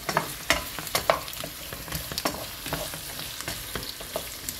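Wooden spatula stirring sliced carrots, onion and quince in a stone-coated frying pan, with irregular scrapes and knocks against the pan over a steady sizzle of the vegetables sautéing in olive oil.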